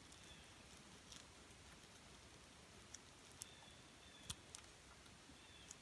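Near silence, broken by a few faint crackles and ticks of moss and bark as moss is stuffed by hand into the gaps between spruce wall logs. The loudest is a single sharp tick a little past the middle.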